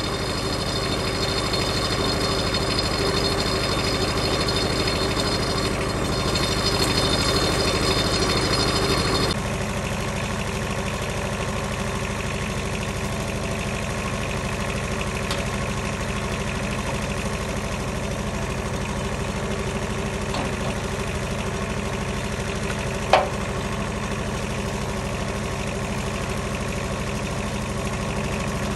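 Wood-Mizer LT15 portable sawmill running steadily, with a louder, higher whine over the engine that cuts off abruptly about nine seconds in, leaving the engine running on. A single sharp click late on.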